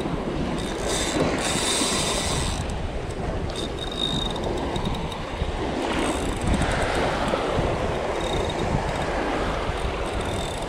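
Spinning fishing reel running as a hooked shark is fought on the line, over steady wind and surf noise on the microphone.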